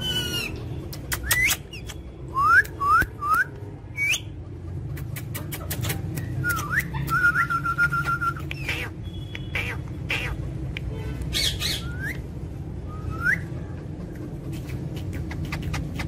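Rose-ringed parakeets calling: short rising chirps and squawks, three loud ones in quick succession about two and a half seconds in, and a held whistle around seven to eight seconds in, among sharp clicks.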